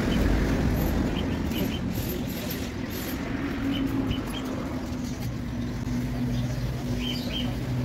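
Steady background rumble of road vehicles, with an engine hum that comes in about halfway and grows stronger.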